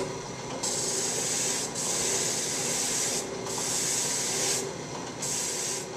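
Flexible sanding pad spinning in a drill press, the drill press motor humming steadily while a wooden bowl's outside is pressed against the abrasive in four passes of about a second each, shaping a curve into the laminated wall.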